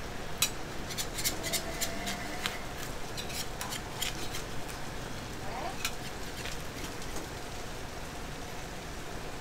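Potstickers frying in a flat steel griddle pan with a steady sizzle, while metal tongs and a spatula click and scrape against the pan, many sharp clicks in the first few seconds and a few more later.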